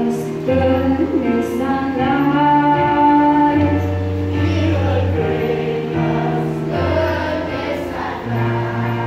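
Children's choir singing a Christmas song with electronic keyboard accompaniment, its held bass notes changing every second or two under the voices.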